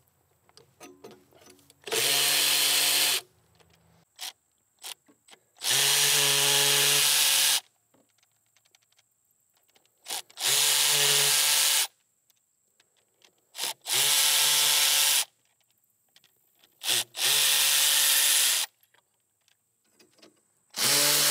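Milwaukee M12 FUEL Insider cordless ratchet running in short bursts of one to two seconds each, five of them, with a sixth starting near the end, as it backs out bolts on an engine. Light clicks and knocks of the tool and socket come between the bursts.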